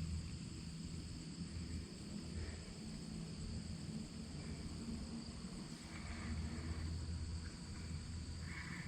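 Insects trilling steadily in two high, unbroken tones, over a faint low rumble.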